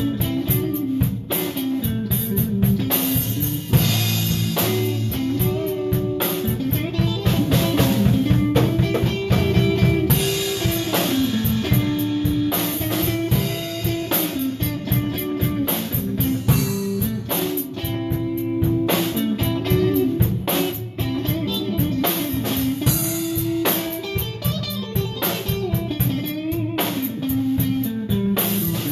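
Live jam of an electric guitar and a Yamaha drum kit playing together: a repeating guitar riff over a steady, busy drum beat.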